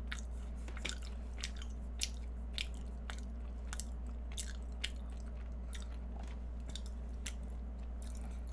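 A person chewing food close to the microphone: soft, wet mouth clicks roughly one or two a second, over a low steady hum.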